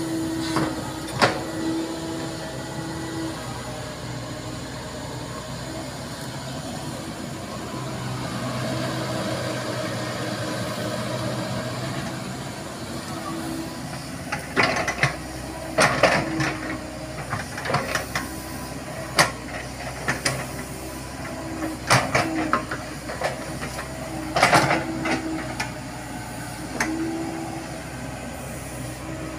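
Komatsu PC70 hydraulic excavator running steadily while digging, its engine note rising for a few seconds as the arm works under load. From about halfway, a string of sharp clanks and knocks from the bucket and its linkage as it scoops and dumps soil.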